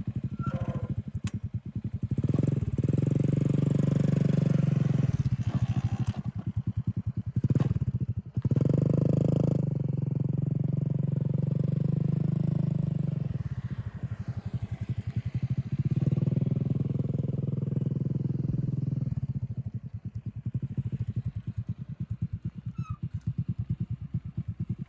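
Motorbike engine of a homemade three-wheeler running through its newly fitted exhaust muffler, opened up three times to higher revs and dropping back to a slower idle between.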